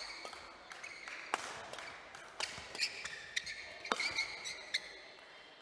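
Badminton doubles rally: rackets striking the shuttlecock in a string of sharp hits, one to three a second, with shoes squeaking on the court floor between them. The hits stop near the end as the rally finishes.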